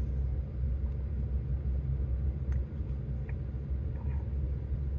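Steady low rumble of a truck engine idling, heard from inside the cab, with a couple of faint clicks midway.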